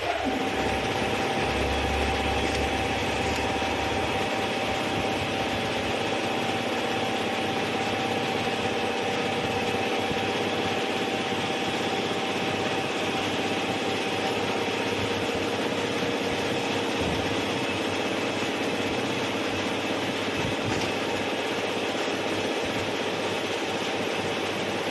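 Machine noise from a CNC lathe cell with a gantry robot loader running: a steady mechanical hum and hiss with a constant whine, one tone of which fades out about fifteen seconds in.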